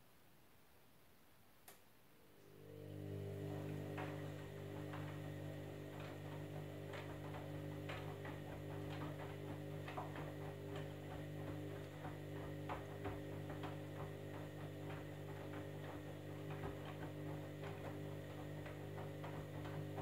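Candy Grand'O Vita front-loading washing machine turning its drum in a wash tumble. There is a small click, then about two seconds in the drum motor starts with a steady hum and runs on, with irregular light clicks and knocks as the wet load tumbles.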